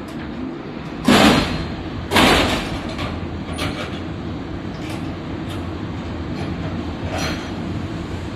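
Two loud metal clanks about a second apart from the coupled autorack cars, each ringing briefly, over a steady low rumble, with a few lighter knocks later.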